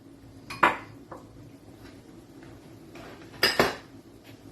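A metal utensil clinking against cookware: one sharp clink about half a second in, then two quick clinks near the end.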